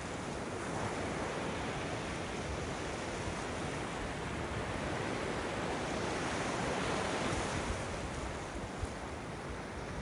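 Ocean surf breaking on rocks and washing over a wet sand shore: a steady rushing wash that swells a little as a wave crashes against the rocks a little past halfway.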